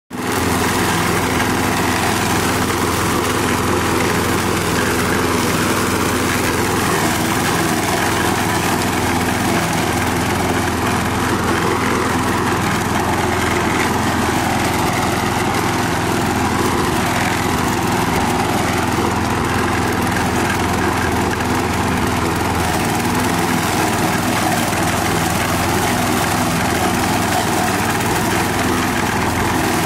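John Deere walk-behind lawn mower's small petrol engine running steadily at a constant speed while mowing grass.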